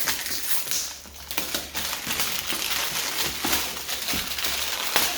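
Toy box packaging being pried open by hand: continuous crackling and rustling with many small clicks and tearing noises.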